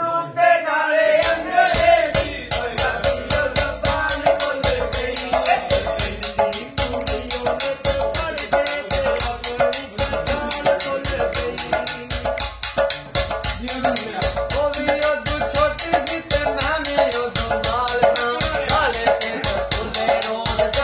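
Folk music with a large metal pot played by hand as a drum: a fast, even clicking and rattling beat with deeper strokes underneath, under a held, wavering melody.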